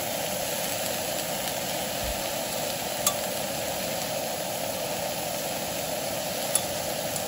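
Onion rings frying on an iron griddle over a gas stove: a steady sizzle mixed with the burner's hiss. Metal tongs click sharply against the griddle twice.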